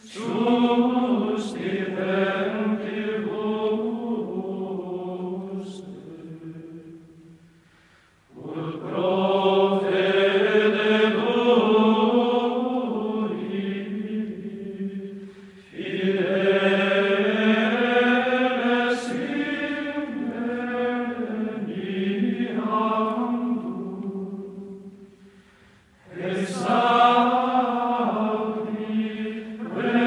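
Background music of slow sung chant: long held vocal phrases that each swell and fade away. There are brief pauses about eight, sixteen and twenty-six seconds in.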